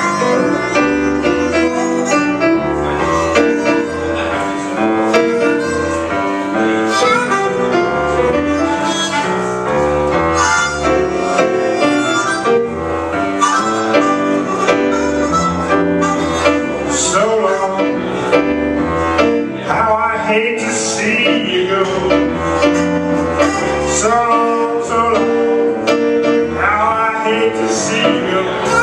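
Blues band playing, with a regular pulsing bass line under sustained chords; sliding, bent notes come in about two-thirds of the way through.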